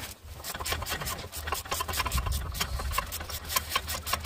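Rapid, even clicking, about six clicks a second, from hand work with a tool at a car's front wheel hub, growing sharper toward the end, over a steady low hum.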